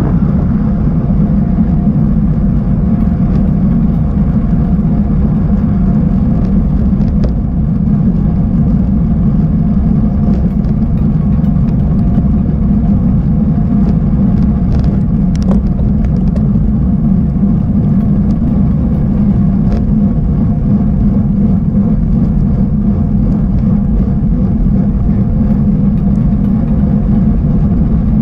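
Steady low rumble of wind and tyre noise from riding a bicycle, with a few faint clicks.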